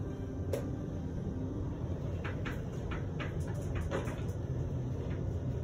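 Steady low rumble of a lift car travelling downward, with a few light clicks.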